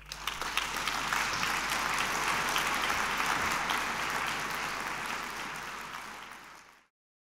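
Audience applauding, swelling within the first second, holding, then tapering off and cut off abruptly near the end.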